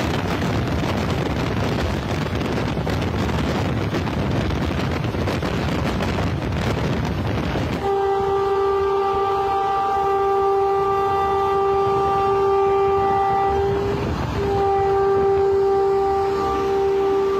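Rumble and rattle of trains running at speed. About 8 seconds in, a locomotive horn starts a long steady blast, breaks off briefly about six seconds later, then sounds again.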